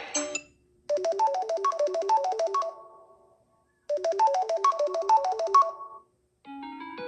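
Samsung Galaxy A33 5G ringtone: a short run of quick, bright notes, played twice with a second of silence between. A different ringtone starts near the end.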